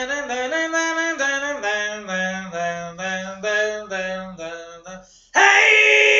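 A man singing into a microphone, a melody in short stepped phrases. About five seconds in, after a brief break, he belts a much louder held note, close to a yell.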